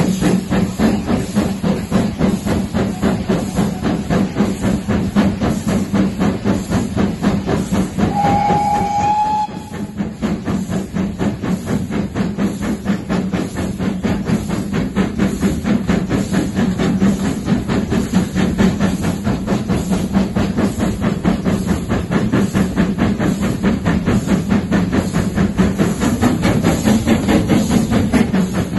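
GWR Castle-class 4-6-0 steam locomotive 4079 Pendennis Castle working hard at speed, heard from a carriage of its train: a fast, even beat of exhaust chuffs with hiss and rail noise. About eight seconds in, a short steam whistle sounds for a second and a half at one steady pitch.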